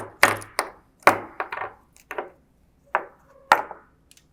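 Hard knocks and clatters of small printhead parts, the freshly removed print wheels, being handled and set down on a workbench: about eight sharp knocks at uneven intervals.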